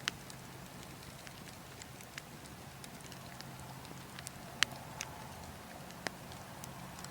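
Burning logs crackling, with sharp irregular pops, the loudest about two-thirds of the way through, over a steady wind noise.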